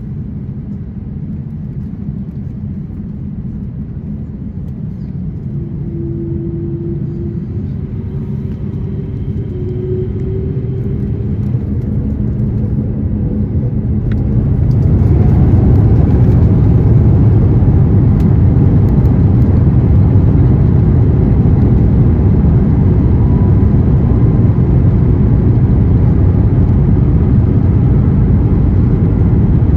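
Airbus A350-900 cabin noise from its Rolls-Royce Trent XWB engines: a steady rumble with faint rising engine tones, then about fourteen seconds in the engines spool up and the noise swells into the loud, steady rumble of the takeoff roll.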